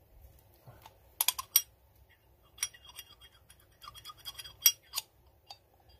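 Small brake caliper parts handled on a workbench: scattered light clicks, taps and scrapes of small hard pieces. There is a quick cluster about a second in and a denser run from about three and a half to five seconds in, the sharpest click near the end of that run.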